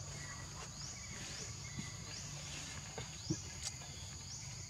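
Steady high-pitched insect drone, with a short rising chirp repeating about every half second over a low rumble; two brief clicks a little past three seconds in.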